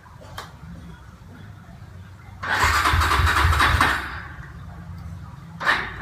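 Honda Tiger's single-cylinder four-stroke engine being started after water got into its fuel: a click, then about two and a half seconds in it turns over and fires loudly for about a second and a half before dropping back, and starts again loudly near the end.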